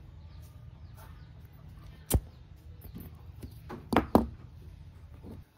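A few sharp clicks over a low steady hum: one about two seconds in, then two close together about four seconds in.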